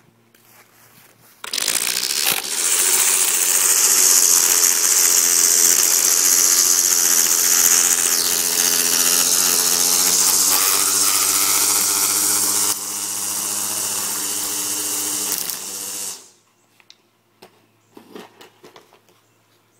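Ryobi 24V battery-powered line trimmer starting about a second and a half in and running at a steady whine, its spinning line hissing as it edges grass along a concrete curb; the sound drops a little about two-thirds through, then cuts off near the end, followed by a few faint clicks.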